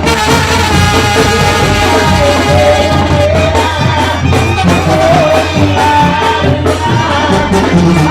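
Mexican banda, a brass and wind band, playing live. A steady bass line runs under a wavering wind melody, with drums keeping the beat.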